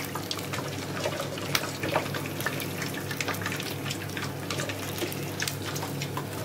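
A pork leg deep-frying in a pot of hot oil: steady sizzling with frequent, irregular sharp crackles and pops as the skin crisps on its second fry. A low steady hum runs underneath.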